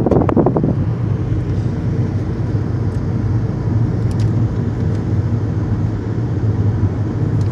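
Car interior road noise while driving: a steady low rumble of engine and tyres on the road surface.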